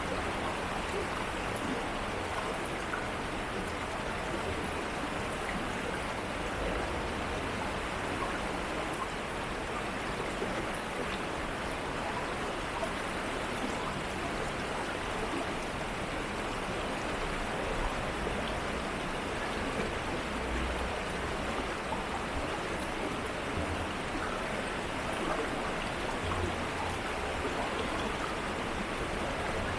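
Steady rushing and babbling of a city stream flowing over its bed, with a faint low rumble underneath.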